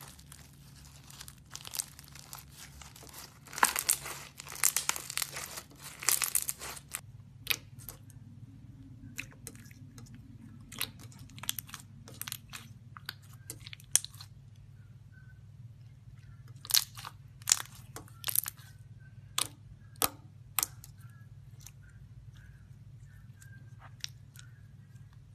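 Slime being stretched and squeezed by hand, with crackling and popping from trapped air. A dense run of crackles starts about four seconds in, then thins to scattered sharp pops about once a second.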